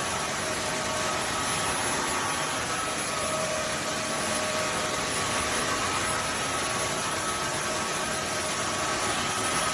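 Roborock F25 LT cordless wet-and-dry vacuum mop running steadily in auto mode as it mops a hard floor. Its suction motor makes an even rushing noise with a steady whine over it.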